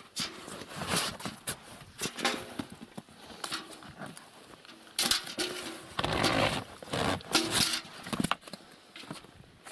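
Live fish being picked off the rubber floor of an inflatable boat and dropped into a metal bucket: irregular wet slaps and knocks of fish on the bucket and boat floor, with handling rustle. A longer, louder rustle comes about six seconds in.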